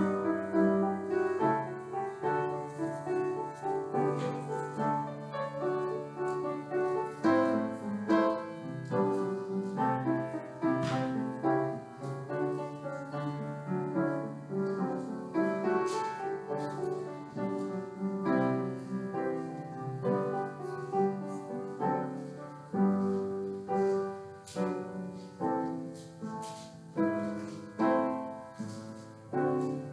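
Piano music: slow playing of chords over held bass notes.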